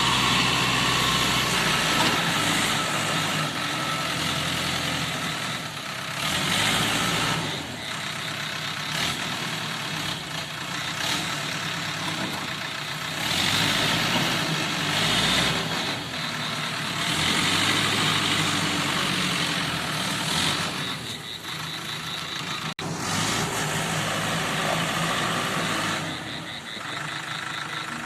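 Old JCB 3D backhoe loader's diesel engine running, revving up and settling back again and again as the machine works, with louder stretches lasting a few seconds each.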